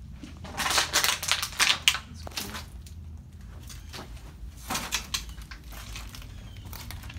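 Footsteps crunching and crackling over debris and litter, loudest in a dense burst from about half a second to two seconds in, then scattered clicks and crunches.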